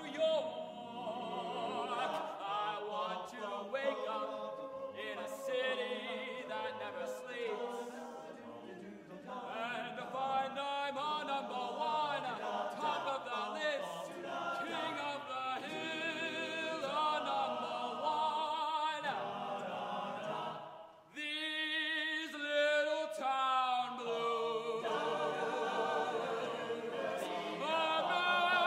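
Men's a cappella choir singing, with a solo voice singing with strong vibrato in front of the group. The singing breaks off briefly about twenty seconds in, then resumes.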